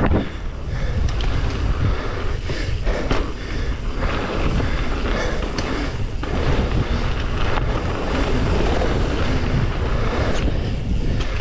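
Mountain bike riding fast over gravel and dirt: tyre roar, chain and frame rattling over bumps, and wind buffeting the bike-mounted camera's microphone.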